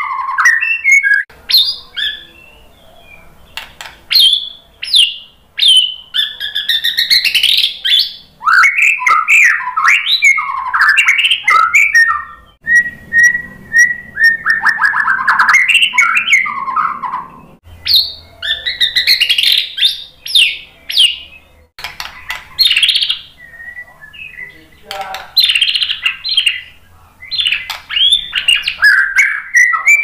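White-rumped shama (murai batu) singing loudly: varied whistled phrases, fast trills and chattering notes in bursts of one to several seconds with short pauses between them, and a single held whistle a little before halfway.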